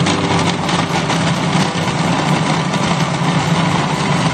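Electric food processor running steadily, its blade chopping tomatoes to a pulp in the plastic bowl.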